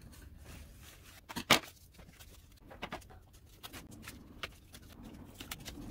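Scissors snipping red cardstock and paper being handled, with a few sharp clicks; the loudest click comes about one and a half seconds in.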